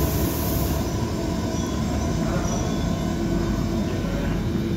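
Athens metro train running along the platform inside an underground station: a steady rumble of wheels and motors, with a faint steady whine in the second half.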